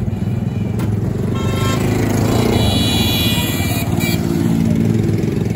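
Motor vehicle engine running close by, a steady low rumble, with a higher whining tone from a vehicle that rises in about a second and a half in and fades out about four seconds in.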